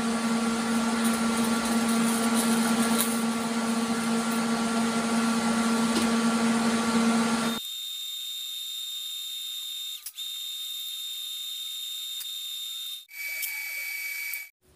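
A steady machine hum, then a sudden drop about seven and a half seconds in to a quieter high hiss with a thin whine. Near the end a TIG welding arc strikes on the thin steel cone: a steady high-pitched buzz lasting about a second and a half that stops abruptly.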